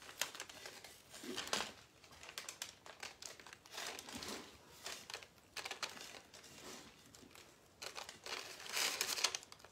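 Paper crinkling and rustling under a cake as hands press shredded coconut onto its frosted sides, in irregular handling noises that swell a few times, most strongly near the end.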